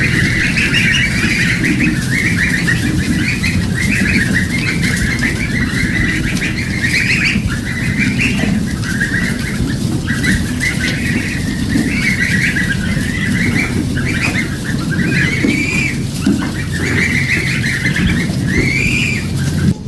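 A flock of poultry calling over one another in a dense, continuous chorus of short, arching calls, over a steady low background noise.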